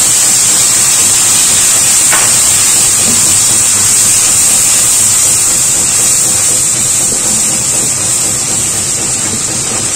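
Onions, ginger-garlic paste and ground spices sizzling in hot oil in a frying pan as they are stirred: a loud, steady hiss that eases a little toward the end.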